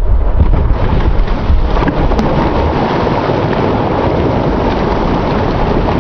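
Water splashing as a man and a small inflatable raft crash into a swimming pool, slowed down with the slow-motion picture. It comes out as a deep, rumbling wash of noise, a little louder in the first couple of seconds.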